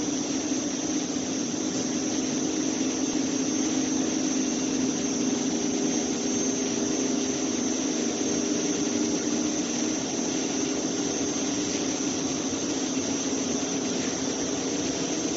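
Multi-block wire drawing machine running steadily as it draws welding wire: a continuous mechanical hum with a thin, steady high whine above it.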